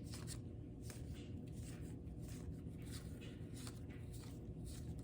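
Baseball cards being handled one by one, card stock sliding over card stock in a series of soft, irregular swishes about two a second, over a steady low hum.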